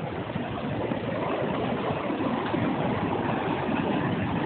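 Steady rushing of river water, an even wash of noise with no breaks.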